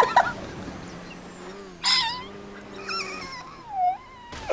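A person's wheezing laugh, gasping out a few high, squeaky wheezes about two and three seconds in, and a squeal that dips and rises again near four seconds.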